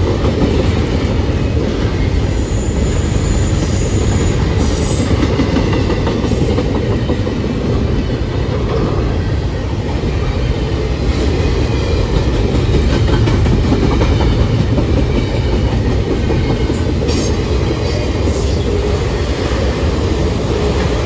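Freight train cars rolling steadily past on the rails: a continuous low rumble with the clatter of steel wheels over rail joints and the crossing.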